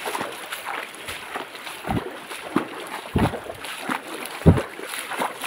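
Footsteps splashing and sloshing through a shallow, stony stream, with a heavier splash roughly every second, the loudest near the end.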